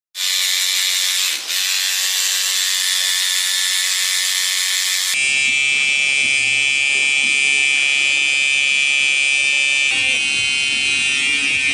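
Electric tattoo machine buzzing steadily, a loud electric hum. It shifts abruptly to a lower, harsher buzz about five seconds in and changes again near ten seconds.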